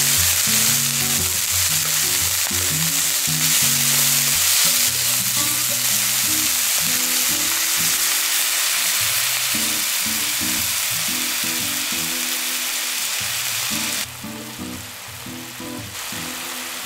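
Chicken pieces and sliced onion sizzling and frying in a pan, a steady dense hiss, with background music. About 14 seconds in it drops abruptly to the quieter bubbling of the soy-sauce mixture simmering.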